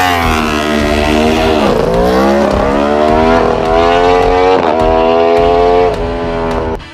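Large-displacement motorcycle engine revving hard, its pitch falling and climbing again several times, then cutting off abruptly at the end.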